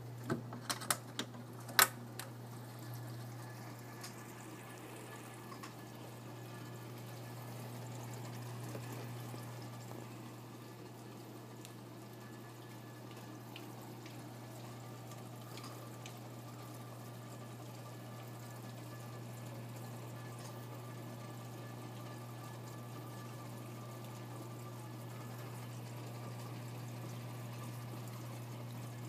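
Reef aquarium's filtration running: water trickling and splashing into the sump over a steady low pump hum. A few sharp clicks in the first two seconds, the loudest about two seconds in.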